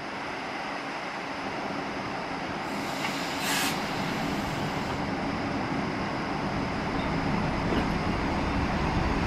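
ED4M electric multiple unit pulling away from the platform, a steady running noise that grows slowly louder as it nears. There is a brief hiss about three and a half seconds in.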